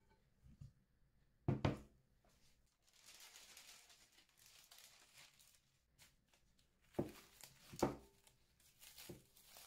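A glass mixing bowl set down on a silicone baking mat with two thumps, then a sheet of baking paper rustled, crinkled and torn as it is handled, with a few more soft knocks as it is laid flat.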